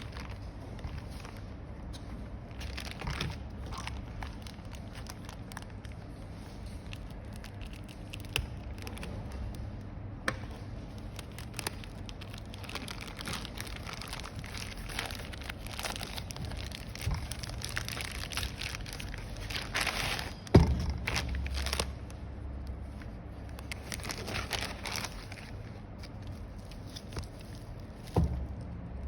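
Packaging being handled and opened by hand: crinkling and rustling with scattered small clicks, a louder thump about twenty seconds in and another near the end.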